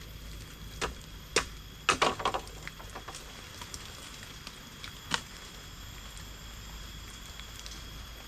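A few sharp knocks and taps, the loudest a quick cluster about two seconds in and another single knock about five seconds in, over a steady background hiss with a faint high whine.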